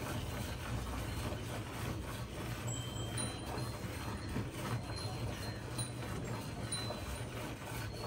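Hand milking a cow: streams of milk squirting from the teats into a steel bucket of frothy milk, over a steady low hum.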